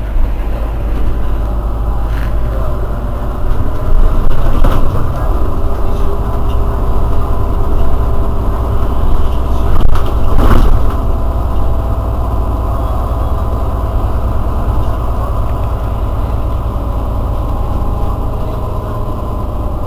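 Irisbus Citelis 12 city bus's engine idling steadily while the bus stands at a stop, a deep even hum, swelling louder briefly about four seconds in and again about ten seconds in.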